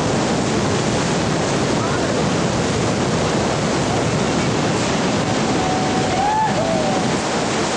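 Whitewater rapid running: a steady, loud rush of water with no let-up, from a great volume of river forced through a narrow slot.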